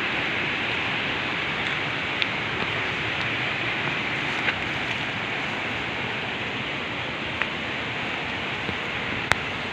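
Steady hiss of falling rain, with a few faint sharp ticks scattered through it.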